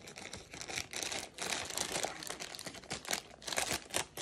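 Clear plastic packaging bag crinkling and crackling irregularly as it is handled and cut open with scissors.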